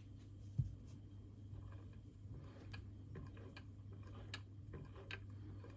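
Faint scattered light clicks and ticks of small metal parts being handled on a Märklin 16051 model steam engine that is not yet running, with one low thump about half a second in, over a steady low hum.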